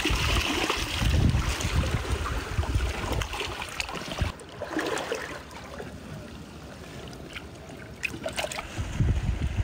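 Shallow seawater sloshing and trickling among rocks in a tide pool, with gusty low wind rumble on the microphone for the first few seconds and again near the end, and a few small splashes or clicks in between.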